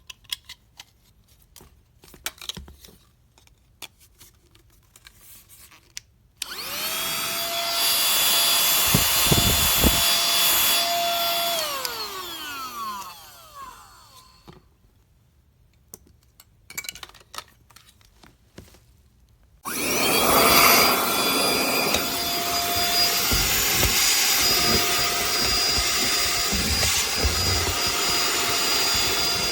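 Cordless handheld car vacuum's electric motor switched on, running with a steady high whine, then switched off and spinning down with falling pitch. After a few handling clicks it is switched on again and keeps running.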